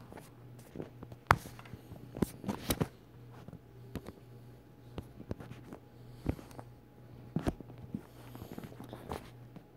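Phone being handled, picked up by its own microphone: scattered light taps and knocks, the sharpest about a second in, over a faint steady hum.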